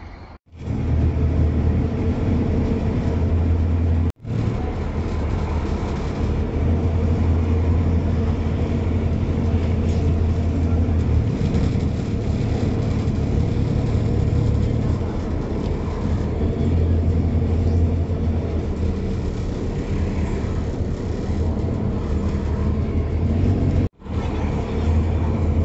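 Steady low drone and rumble of a moving road vehicle heard from inside its cabin: engine and road noise. The sound cuts out abruptly for an instant three times, near the start, about four seconds in and near the end.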